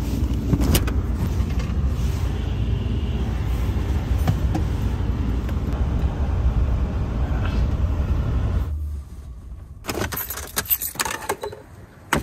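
Steady low rumble of road and engine noise inside a moving Ford F-150 pickup's cab, with light rattling and a few clicks. About nine seconds in it cuts off abruptly to a quieter stretch of clicks and knocks as a fuel nozzle is handled at a gas pump.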